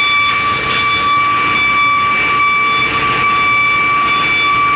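Heavy machinery running, with a steady high-pitched whine over a rushing noise.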